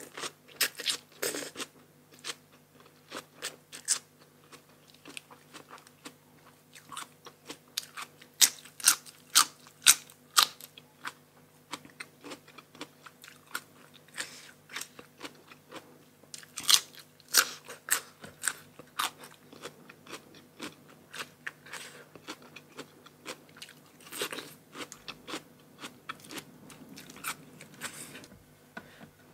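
Close-miked eating sounds: a person crunching raw vegetables and chewing spicy blue crab papaya salad, with a steady run of sharp crisp bites and chews. The loudest crunches come in clusters about a third of the way in and again just past halfway.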